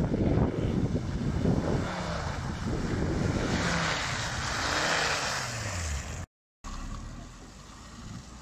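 Volvo XC70 pushing through muddy, water-filled ruts close by: engine running under load with tyres churning mud and water, a splashing hiss building as the car passes, and the engine note falling. The sound cuts out abruptly about six seconds in, then a quieter engine is heard.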